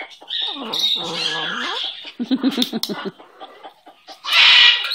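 Green-winged macaw vocalizing: low, wavering voice-like calls and a quick pulsing chatter, then one loud, harsh squawk near the end.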